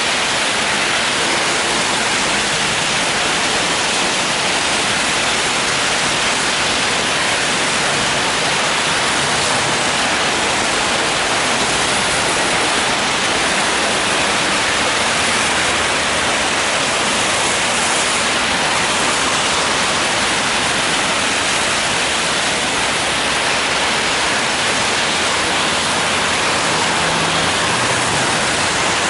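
Rain falling steadily on an umbrella held overhead, an even unbroken hiss, with traffic on the wet road mixed in.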